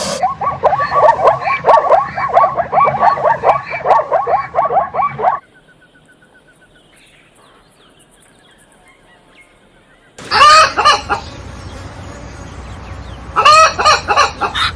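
Domestic fowl calling: a fast run of repeated clucking calls for about five seconds, then a few seconds of quieter background, then two short bursts of louder calls.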